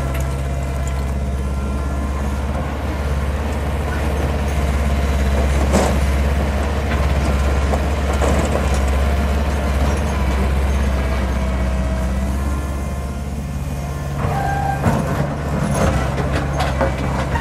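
Mechanical digger working on demolition: its diesel engine runs steadily with a deep hum, with scattered knocks and clanks from the work. Near the end the clanking gets busier, with short squeaks mixed in.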